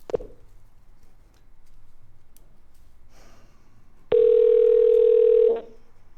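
Telephone ringing tone heard down the line while the call is being transferred: one steady, single-pitched tone about a second and a half long, starting about four seconds in, after a short blip at the very start.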